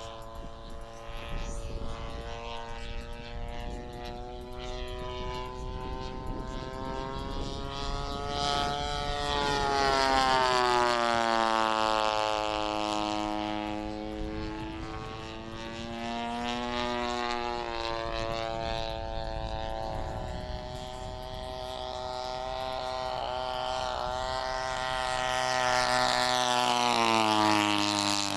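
Hawker Hurricane's propeller engine running as the aircraft flies overhead. The pitch rises and falls as it passes, louder about ten seconds in and again near the end as it comes by low.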